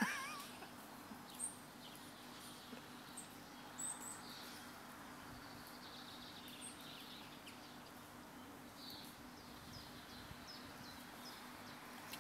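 Faint, scattered bird chirps, short high calls every second or two, over a quiet outdoor background with a low steady hum.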